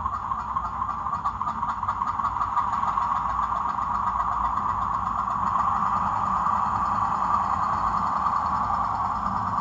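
Digital sound decoder in a model Class 07 diesel shunter playing the locomotive's diesel engine through the model's small onboard speaker. The engine note builds over the first few seconds as the shunter moves off, then runs steadily.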